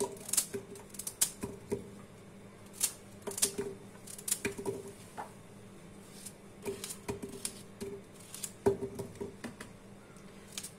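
Raw carrot and potato being cut in the hand with a kitchen knife, the chunks dropping into an empty stainless steel pot: irregular sharp clicks and light knocks, several a second at times, with quieter gaps.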